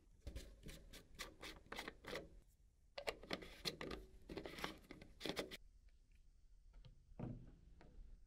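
Faint rapid scratching and clicking in two bursts of about two seconds each, then a few scattered clicks near the end: hands handling tools or parts.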